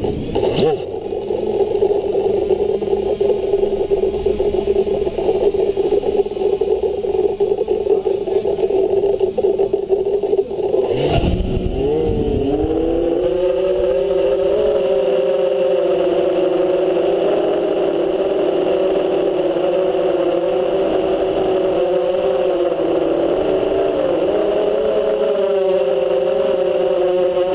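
FPV quadcopter's electric motors and propellers: a steady rattly buzz, then about eleven seconds in a sharp click and the motor whine rises in pitch as the throttle comes up, settling into a steady whine that wavers slightly with the flying.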